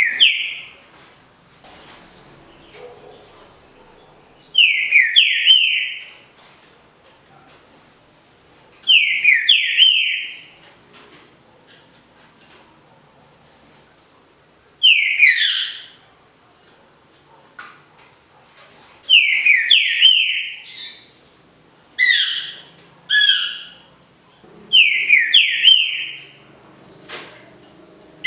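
Green-winged saltator (trinca-ferro) singing its 'canto liso' Paraná song type. It gives short, loud phrases of a few whistled notes that slide downward, repeated about every four to five seconds, about seven phrases in all.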